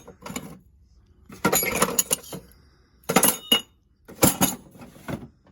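Small hard odds and ends clinking and rattling against each other as they are handled, in about four short bursts with quiet gaps between.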